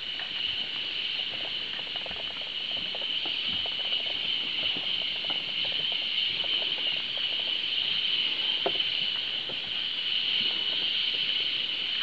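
A steady high-pitched drone of rainforest insects, with footsteps knocking irregularly on the boardwalk.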